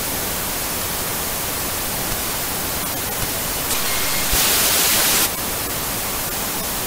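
Static hiss sound effect: a steady white-noise rush like a lost TV signal, louder and brighter for about a second a little after the middle.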